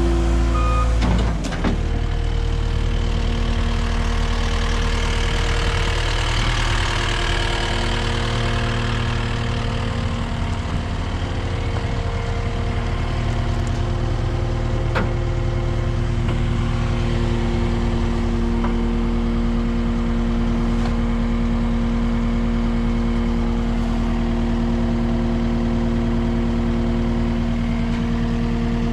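Cat 242D skid steer's diesel engine running steadily at a constant speed, its note changing once about a second and a half in.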